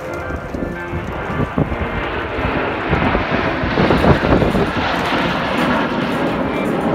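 Aircraft flying past, a rough rushing engine noise that grows louder over the first three seconds and stays loud.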